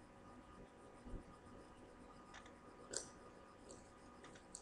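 Faint clicks and taps from hands working a plastic basket, pressing clear tape onto its edges, over quiet room tone with a low steady hum.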